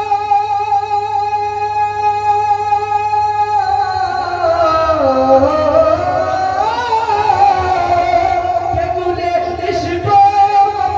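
A man singing a manqabat solo into a microphone, amplified over a PA: a long held note, then from about four seconds in a wavering melodic run that dips low and climbs again.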